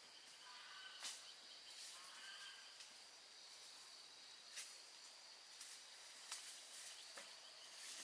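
Faint forest ambience: insects buzzing steadily at a high pitch, with a few soft bird chirps about half a second and two seconds in, and occasional light clicks or twig snaps.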